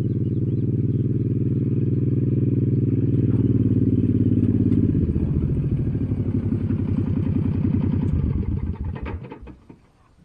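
Farm tractor engine running steadily, dropping to a slower, pulsing idle about halfway through, then shut off and running down to a stop near the end.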